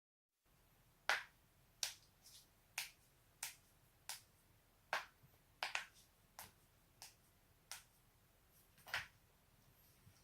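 Neck joints cracking: a series of about a dozen sharp pops, roughly one every two-thirds of a second, with a strong one near the end.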